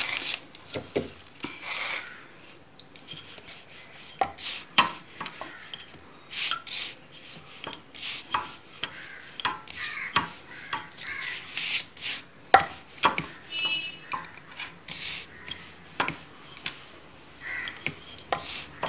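Wooden rolling pin rolling out a round of dough on a board: irregular rubbing as the pin runs back and forth, with scattered light knocks and clicks as it and the hands tap the board.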